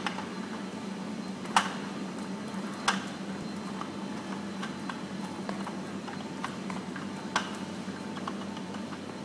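Clear polycarbonate rolling-shutter slats clicking and knocking as they are handled and a metal rod is slid through their hinge knuckles: a few sharp clicks, the strongest about a second and a half in, near three seconds and past seven seconds, over a steady low hum.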